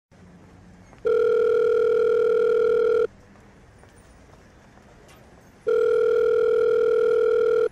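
Telephone ringback tone heard on the caller's line: two steady tones of about two seconds each, with a gap of roughly two and a half seconds between them, while the called phone rings.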